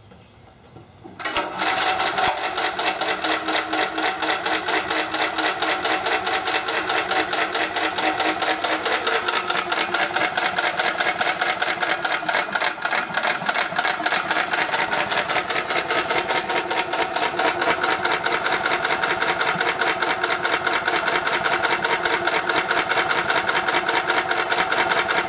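Small single-cylinder overhead-valve engine of a 7 hp Chicago Electric generator starts about a second in and runs steadily at idle on a minimal flow of hydrogen, with a rapid, even firing rhythm.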